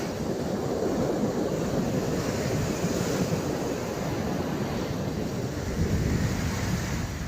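Powerful fast-flowing water rushing steadily.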